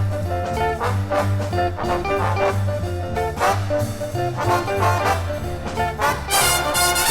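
Jazz orchestra playing a swing number: brass over a steady line of low bass notes, with a loud bright brass swell about six seconds in.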